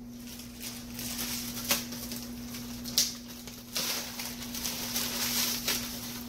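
Rummaging for a bag of frozen spinach in a freezer: frozen packages knock sharply a few times and a plastic bag crinkles, over a steady low hum.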